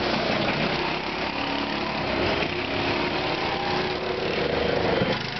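Go-kart engines running as the karts circle the track: a steady small-engine drone, with one kart close by.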